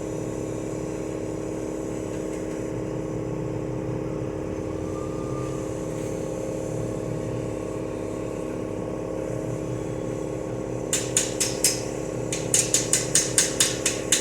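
A stick welder humming steadily. Near the end comes a quick run of sharp taps and clicks: the electrode being scratched and tapped on the work without an arc striking, since the welding lead is not plugged in.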